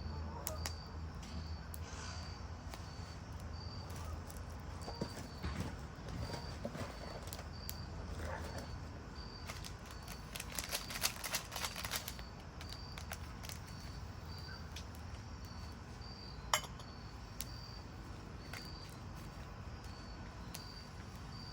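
A cricket chirping steadily, a short high chirp repeated about twice a second. Scattered clicks, a burst of crackling about ten seconds in and one sharp click a little later.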